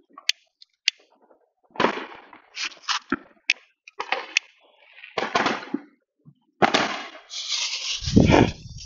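Ground firework going off: a couple of sharp pops, then irregular spells of crackling and popping. It ends loudest in a sustained hiss with a deep rumble near the end.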